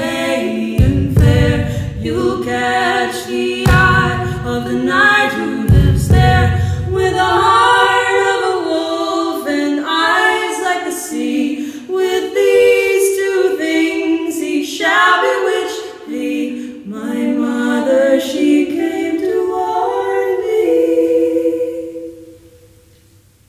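Two women's voices singing a cappella in close harmony, with a few low thumps in the first six seconds. The song ends on a long held note that dies away near the end.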